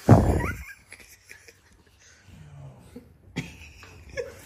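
A person's short, loud vocal outburst, cough- or laugh-like, right at the start. Faint low voices follow.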